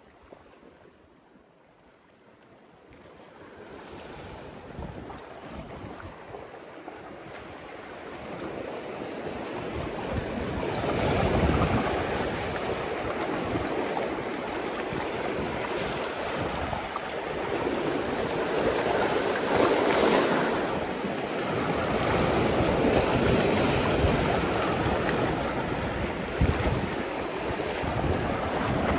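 Sea surf washing ashore with wind on the microphone: a steady rushing that rises from near quiet over the first ten seconds, then swells and eases roughly every eight seconds as waves come in.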